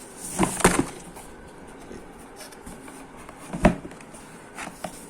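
Knocks and light rustling from a keyboard box and its packaging being handled: a quick cluster of knocks about half a second in, and a single sharper knock just before four seconds.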